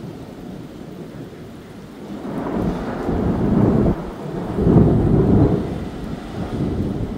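Long rolling thunder: a low rumble swells about two seconds in, peaks twice and slowly dies away, over steady rain.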